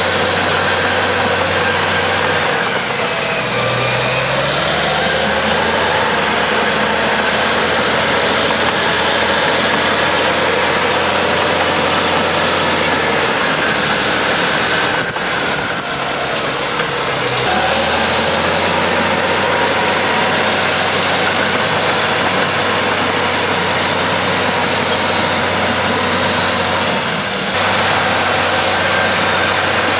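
Caterpillar D6C crawler dozer's diesel engine working under load as the blade pushes dirt. A high whine runs over it, and the engine note dips and rises a few times.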